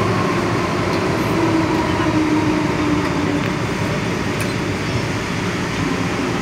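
Interior running noise of an MTR M-Train electric multiple unit: a steady rumble of wheels on rail, with a motor whine that falls slowly in pitch as the train slows.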